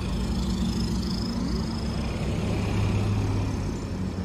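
Street traffic passing close by: car and truck engines running, with one vehicle growing louder about three seconds in.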